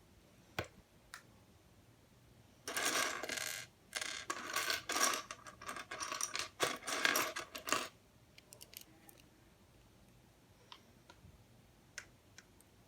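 Small hard plastic LEGO Technic pieces clattering against each other for about five seconds, as if poured or rummaged through, with a few single clicks before and after.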